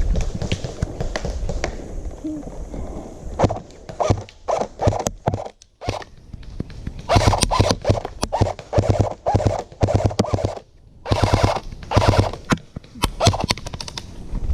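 Airsoft gun firing in several short rapid bursts of clicking shots from about three and a half seconds in, preceded by low rustling and movement noise.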